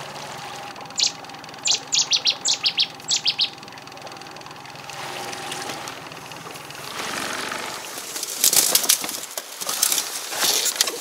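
A quick run of about a dozen short, sharp bird calls in the first few seconds. From about 8 s in, dry reed stems crackle and snap loudly as an inflatable boat is pushed into a reed bed and hands grab the stems.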